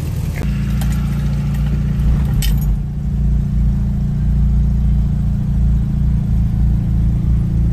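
Volkswagen Type 2 bus's air-cooled flat-four engine idling steadily, heard from inside the cab, with a few knocks and rattles in the first three seconds.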